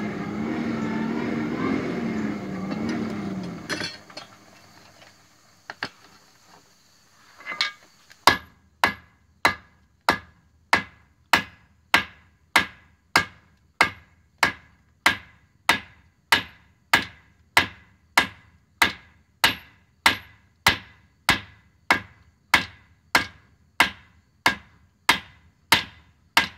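Blacksmith's hammer forging a red-hot piece of steel on an anvil, an old hammer head being drawn into an adze: about thirty evenly spaced blows, a little under two a second, each with a short ring. Before the hammering, a steady droning hum with a wavering pitch stops about four seconds in, followed by a couple of single knocks.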